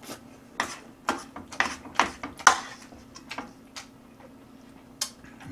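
Eating sounds: a run of sharp clicks and smacks over the first few seconds as fried instant noodles are chewed and metal chopsticks knock against the pan and bowl, then quieter with one more click about five seconds in.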